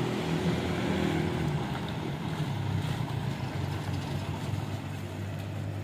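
A car's engine running steadily as the car moves, a low hum with road noise.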